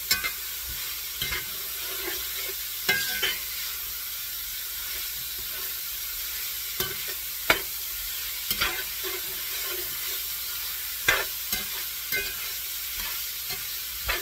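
Diced beef steak with peppers, onions and garlic sizzling in a pan. A steady frying hiss runs throughout, with about ten sharp knocks and scrapes of a utensil against the pan as the mixture is stirred.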